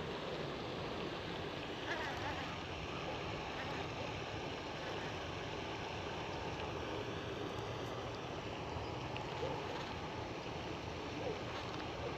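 Steady outdoor wind noise rumbling on the microphone, with a few faint short knocks.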